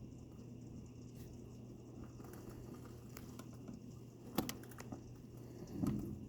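Light rain in its last stage: scattered drips and ticks over a steady low hum, with one sharper tick about four seconds in and a short low thump near the end.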